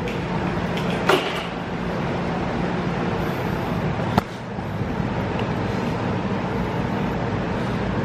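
Steady hum of running machinery, with two sharp clicks, about a second in and about four seconds in.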